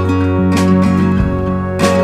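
Background music: strummed acoustic guitar chords, with a few strokes ringing on.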